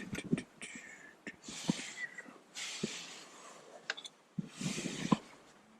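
Scattered light clicks and taps from handling the plastic clips, screws and trim of a car door panel, between several short breathy hisses.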